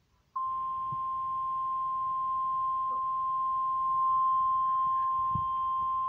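Emergency Alert System attention tone for a severe thunderstorm warning: one steady, unwavering high tone that switches on abruptly about a third of a second in, with a faint hiss under it, played through a television's speaker.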